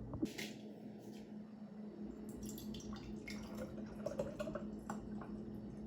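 Warm homemade cough syrup of olive oil, lemon juice and honey being poured and dripping into a glass mason jar, faint small splashes and drips over a steady low hum.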